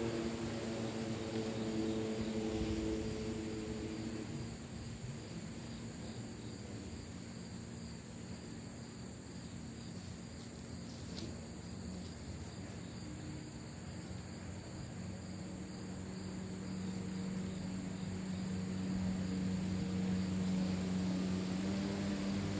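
Steady high drone of crickets and other insects, with the low hum of a distant engine that fades out after a few seconds and swells again louder near the end. There is a single sharp click partway through.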